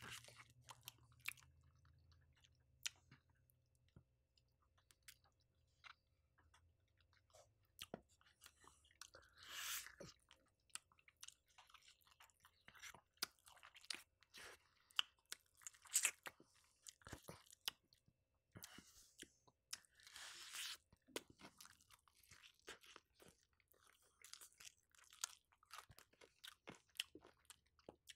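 Quiet close-up chewing and crunching of Popeyes fried chicken, with scattered crisp clicks of the breading between the teeth and a few louder crunchy bites about ten, sixteen and twenty seconds in.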